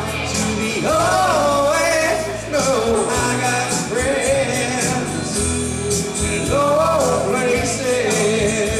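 Live country-rock performance: a man singing a drawn-out melody over electric guitar, with drums keeping a steady beat.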